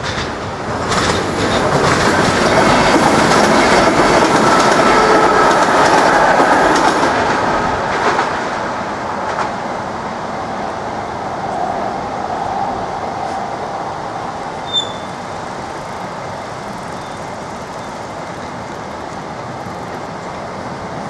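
A train passing the level crossing, its wheels clicking over the rail joints. It is loudest for the first eight seconds or so, then dies away as the train recedes.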